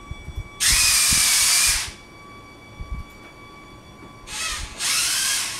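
VEX robot's electric arm motors whining as they raise the lift arm under autonomous control toward a set potentiometer height. There is one run of about a second, then two shorter runs near the end.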